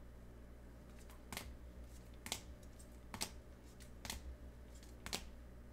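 Sharp plastic clicks about once a second as trading cards in rigid clear toploaders are flipped through one at a time, over a faint steady hum.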